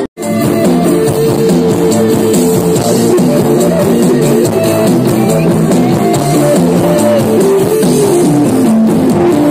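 Loud music played through a large outdoor sound system during a sound check, a melody moving over steady accompaniment. It drops out for an instant just at the start.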